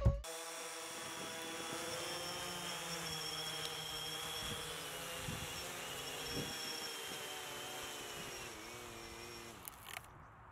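DJI Phantom 3 Standard quadcopter's four motors and propellers running on the ground, a steady whine of several tones that drifts slowly in pitch. The pitch sags near the end, and the sound cuts off sharply about ten seconds in.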